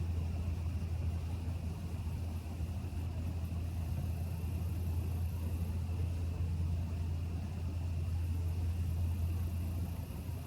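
A steady, low engine rumble like an idling vehicle, unchanging throughout.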